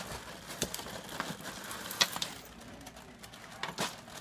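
Light knocks and rustles of a cardboard cereal box as a golden retriever, her head inside it, shoves it about on a wooden floor; a handful of scattered clicks rather than a steady sound.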